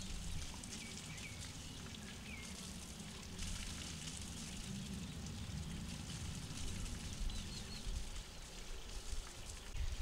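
Quiet outdoor ambience: a steady hiss over a low rumble, with a few faint bird chirps, a couple in the first few seconds and one more later.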